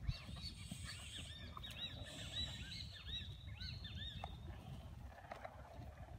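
Birds chirping in a quick run of short, arched notes at several overlapping pitches, dying away after about four seconds, over a low continuous rumble.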